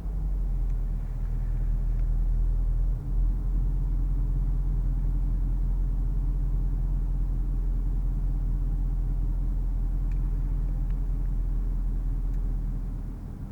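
The supercharged 5.0-litre V8 of a 2014 Range Rover Sport running at a steady, light load, making a low, even drone over road rumble. There is a brief dip about three seconds in.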